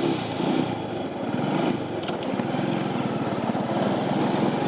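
Motorcycle engine running steadily just after starting, a fast, even putter of firing pulses.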